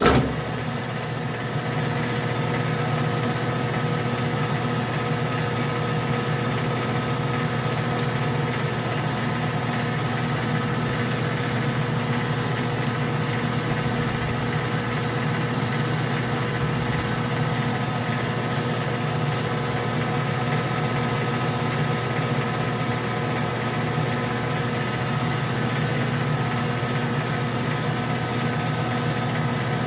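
Metal lathe starting up and then running steadily, with its motor and gearing giving a constant hum, while a knurling tool rolls a pattern into a spinning 12L14 steel bar.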